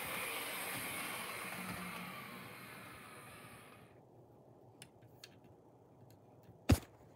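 Bachmann Toby model locomotive running along its track, a steady running noise that fades and stops about four seconds in. A few faint clicks follow, then one sharp, loud click near the end.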